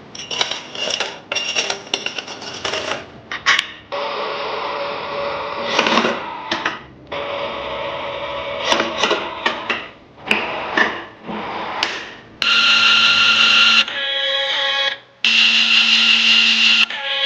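A power tool runs in several bursts that start and stop abruptly, with the longest two near the end, and sharp clicks and knocks of metal parts being handled in between.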